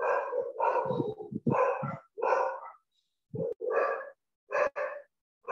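A string of short, high-pitched animal calls, about one every half second, with a brief pause near the middle.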